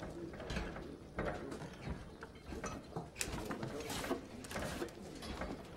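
Scattered clicks, knocks and creaks of people moving about a room, coming at irregular intervals with no steady rhythm.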